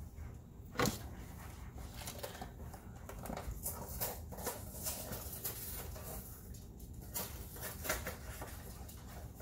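Intermittent scraping with light clicks and knocks, the sharpest knock about a second in.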